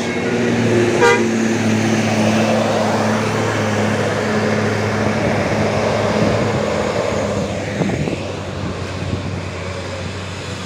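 Tour bus engine running steadily as the bus climbs past, a low, even drone that fades after about eight seconds.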